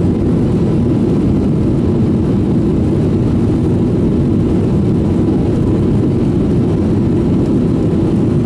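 Steady low rumble heard inside the cabin of a Boeing 737-800 rolling on the ground just after landing: the engines and the rolling airframe.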